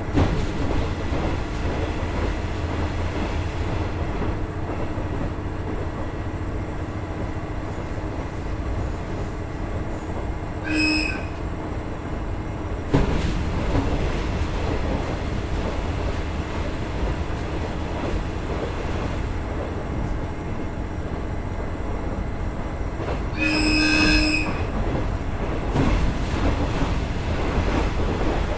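KiHa 110-200 series diesel railcar under way, its Cummins DMF14HZA diesel engine and wheels giving a steady rumble. A steady tone stops with a single knock about halfway through, and a short pitched sound comes twice, once in the middle and once near the end.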